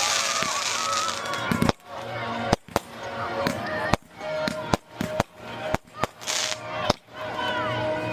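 Fireworks display going off: a loud crackling hiss, then a run of sharp bangs about every half second.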